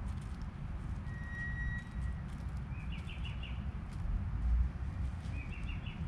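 White-winged doves pecking seed in a clay pot, giving scattered sharp clicks. A small bird chirps in two short runs, about three seconds in and near the end, over a steady low rumble.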